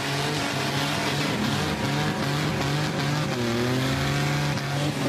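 Car engine held at high revs during a burnout, its pitch wavering with a dip and rise about three and a half seconds in, over the steady hiss and screech of spinning rear tyres.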